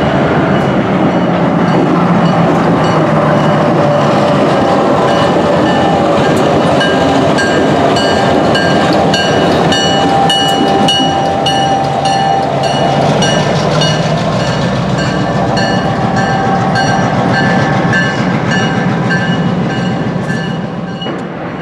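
Caltrain diesel switcher locomotive passing close by at low speed, its engine running with the wheels clicking over rail joints in a steady rhythm.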